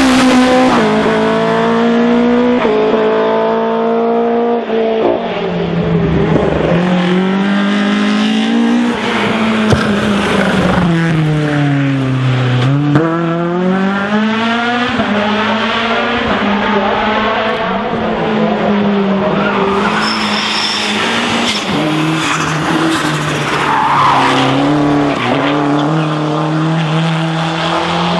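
Racing touring-car engines at full throttle, revving hard as the cars pass. The engine pitch climbs and drops with gear changes, and about halfway through it dips steeply and climbs again.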